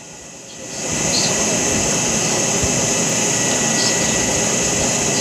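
A steady mechanical rushing noise with a thin high whine, coming up about a second in and then holding level, with a few faint small ticks over it.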